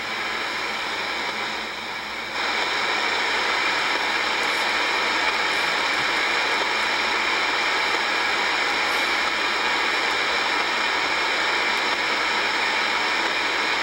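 Steady radio hiss from an Icom IC-R8500 communications receiver tuned to the 119.900 MHz AM airband tower frequency, with no voice on the channel. The hiss grows louder and brighter about two seconds in.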